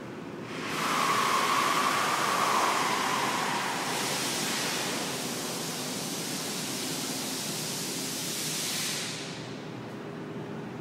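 A loud, steady hiss that starts about a second in, with a whistling tone over its first few seconds, and fades away near the end.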